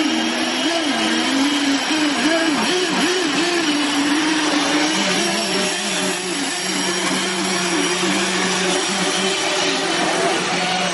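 Small electric motors of RC model boats whining, their pitch rising and falling repeatedly as the throttle changes, with a second steady motor hum joining about five seconds in, over a constant hiss.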